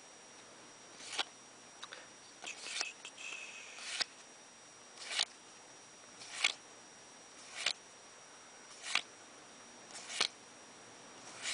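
Magic: The Gathering cards and booster pack being handled: a crisp snap repeating about every 1.2 seconds, about nine times, with a longer papery rustle around three seconds in.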